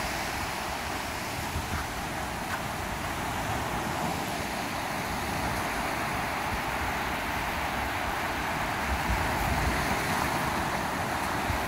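Steady hiss of surf washing on a beach, with wind rumbling on the microphone now and then.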